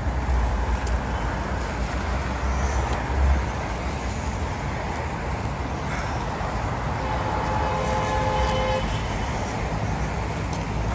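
Steady road traffic noise from cars on the adjacent road, with a heavy low rumble in the first three seconds and a brief faint tone about eight seconds in.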